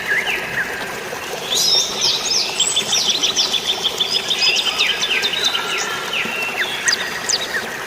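Several songbirds chirping in quick short notes. From about a second and a half in there is a dense run of faster, higher chirps. Under them is a steady hiss of light rain and flowing water.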